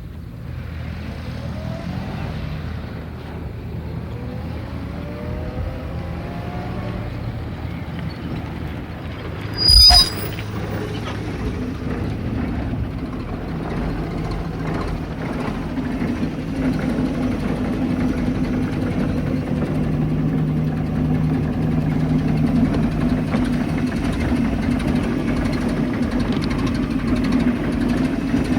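1922 Morris's 11.9 HP side-valve Hotchkiss engine running as the car reverses toward the microphone, with a faint rising whine in the first few seconds. About ten seconds in comes a short, sharp brake squeal, after which the engine ticks over steadily, growing slowly louder.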